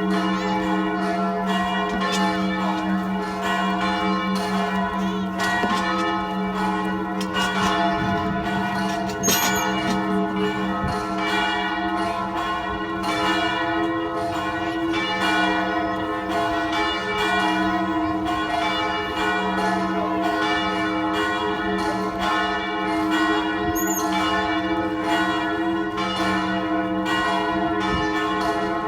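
A peal of Western-style church bells ringing continuously, several bells struck in quick succession so that their strokes overlap over a steady sustained hum.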